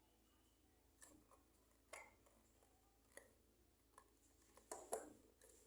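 Faint, scattered clicks and taps of small plastic toy kitchen pieces being handled, about one a second, with two sharper clicks close together near the end.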